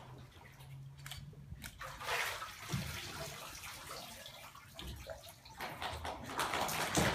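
Water sloshing and splashing in a baptismal immersion tank as a person is lowered under and lifted back out, loudest about two seconds in.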